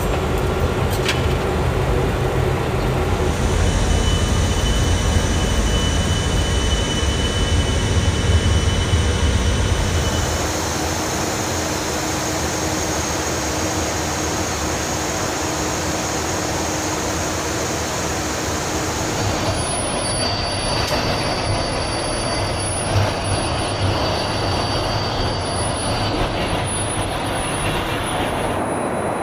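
Steady engine and airflow noise inside a KC-135 Stratotanker. A heavy low rumble for about the first ten seconds gives way to a smoother, lighter rush, with a faint steady whine.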